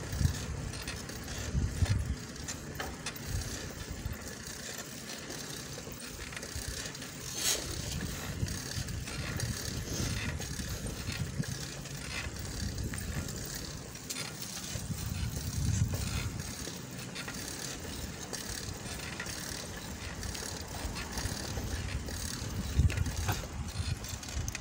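Bicycle ridden over a smooth concrete floor: the tyres and drivetrain running with a stream of small ticks and rattles, and low rumbling that swells and fades several times.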